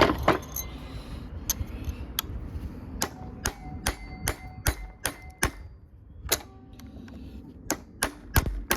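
Small hammer tapping a centre punch against the edge of a rounded, seized screw head, striking metal on metal roughly two to three times a second with a short pause partway through. This is the centre-punch method of driving a stuck screw round to loosen it.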